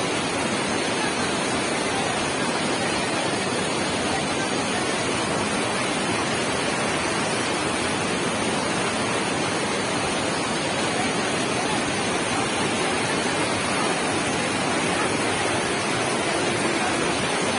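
Swollen, muddy mountain stream in flood after heavy rain, its fast water rushing over and around boulders in a steady, unbroken rush.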